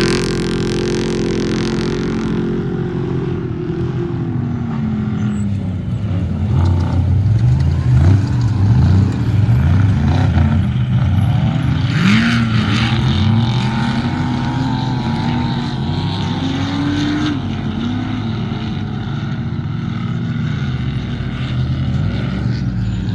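Off-road vehicle engine running, its pitch rising and falling again and again as the throttle is worked, over a steady underlying engine drone.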